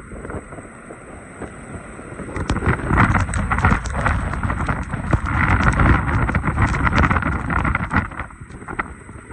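Storm-force wind, gusting to about 55 knots, blasting across a sailing ship's deck and buffeting the microphone with a heavy rumble and crackle, over the rush of breaking seas. The gusts swell about three seconds in and again midway, easing near the end.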